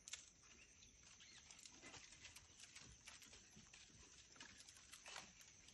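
Near silence: faint outdoor ambience with a steady high hiss and scattered faint ticks and rustles.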